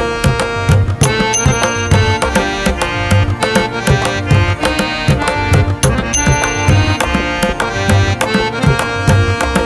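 Background music with a steady drum beat and sustained melodic notes.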